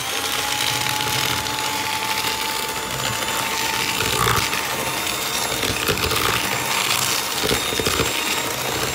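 Electric hand mixer running steadily, its twin beaters whisking eggs and sugar in a plastic bowl, with a steady motor whine. This is the first stage of a sponge cake batter.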